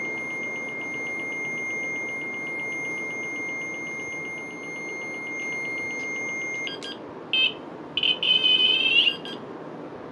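Ghost-hunting proximity detector sounding its electronic alert: a steady high tone over a fast pulsing beep, which cuts off about six and a half seconds in, followed by a few short beeps and a second-long wavering warble near the end. The device reacts to a field around its antenna, which the owner believes is a static electricity field.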